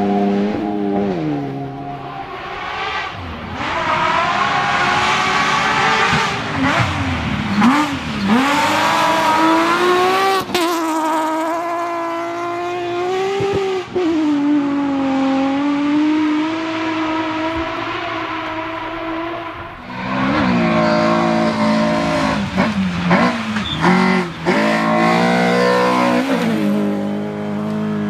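Rally car engines at full stage speed, revving hard, dropping back on gear changes and lifting off for corners, then pulling up again. There is a short sharp crack about ten seconds in, and a dip in the sound just before twenty seconds, after which the revving starts again.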